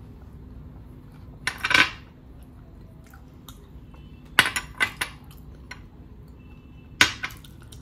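Small glass bowls and a steel plate clinking as they are handled: a brief scrape about a second and a half in, a quick run of sharp clinks a little past halfway, and one more clink with a short ring near the end.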